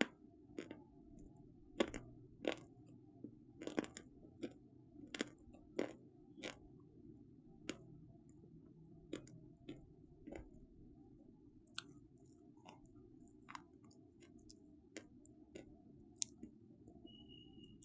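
Close-miked crunching and chewing of something crunchy: irregular sharp crunches, thick and loud for the first several seconds, then sparser and softer.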